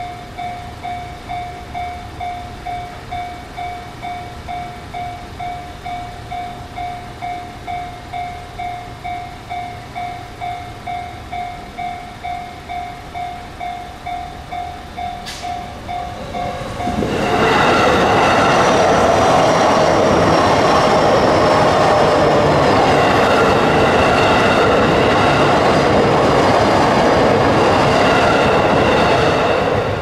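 Japanese railway level-crossing warning bell ringing steadily, about two strokes a second. About seventeen seconds in, a Chuo Line train passes through the crossing, loud enough to drown the bell for about thirteen seconds, with a faint falling whine partway through.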